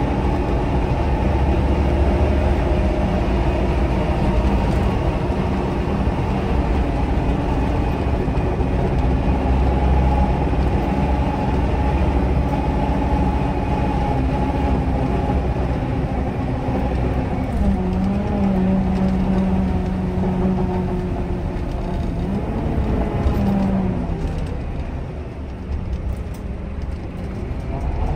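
Scania K310IB bus's five-cylinder DC9 diesel engine and ZF Ecomat automatic gearbox, heard from inside the bus while it drives. The engine runs with a steady drone. About two-thirds of the way in, a strong whining note comes in. Near the end the sound eases off, then builds again.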